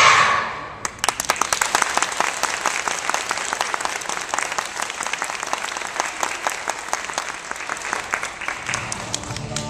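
Audience applauding, starting about a second in and thinning out near the end. The children's choir's final sung note cuts off at the very start.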